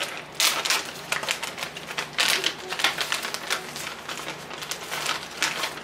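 Plastic snack bag of cookies crinkling and crackling in irregular bursts as it is pulled open and handled.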